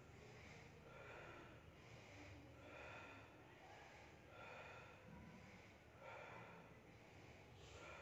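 Faint, rhythmic heavy breathing, a puff about once a second, from a man working through a set of dumbbell presses.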